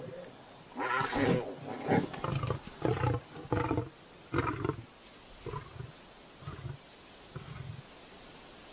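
Lion roaring: a few loud, deep roars followed by a run of shorter grunts, spaced about a second apart, that grow fainter and die away, as a lion's roaring bout ends.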